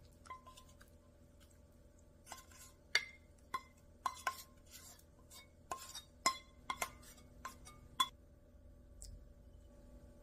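Stainless steel saucepan and utensil clinking against each other and the ceramic bowl as thick porridge is scraped out into the bowl: about a dozen light clinks with short ringing, the loudest about three seconds in and near the end.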